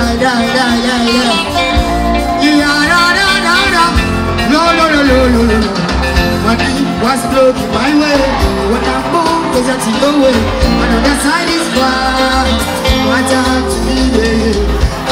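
Live band playing an African pop song, with electric guitars, bass and drums, while a male lead singer sings into a handheld microphone.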